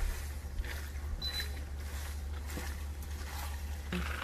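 A silicone spatula stirring sauce-coated bow-tie pasta in a pan, with soft scraping and sloshing over a steady low hum. A brighter hiss comes in near the end.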